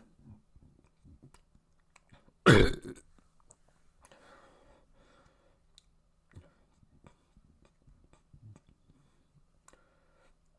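A person's burp: one short, loud belch about two and a half seconds in, followed by a faint breathy sound and small mouth clicks.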